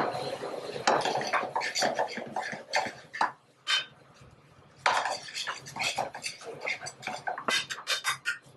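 Metal tongs clinking and scraping against an aluminium sauté pan as pasta is stirred and tossed over a gas burner, in a string of short metallic clicks and scrapes.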